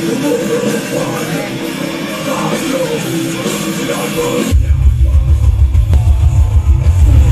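Rock music played loud through a large PA sound system under sound check. About four and a half seconds in it switches suddenly to deep, heavy bass, with the higher parts dropping away and the overall level rising.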